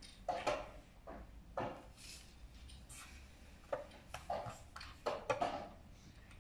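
A run of sharp clicks and knocks: plastic draughts pieces set down on the board and a digital game clock's button pressed during a blitz game, with several knocks close together about five seconds in.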